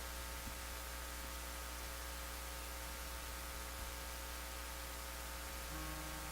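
Steady electrical hum with a constant hiss from the recording setup. Faint held notes come in near the end.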